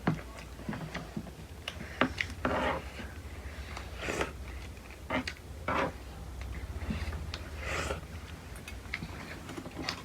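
Close-up eating sounds: chewing and mouth smacking, with scattered small clicks and taps, over a steady low hum.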